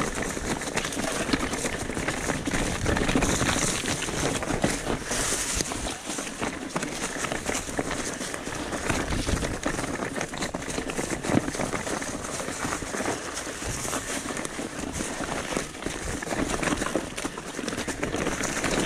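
Continuous crunching and rattling of an e-mountain bike moving over a rough, stony dirt trail, dense with small clicks and crackles.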